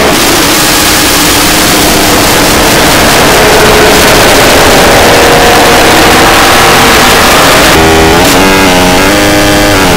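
Harsh noise music: a very loud, dense wall of distorted electronic noise with wavering pitched tones buried in it. Near the end the tones step up and down in pitch and then bend downward.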